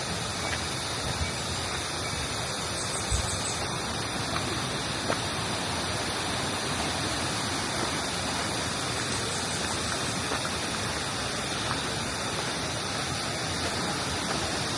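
Water cascading over rocks in a stream, a steady even rush.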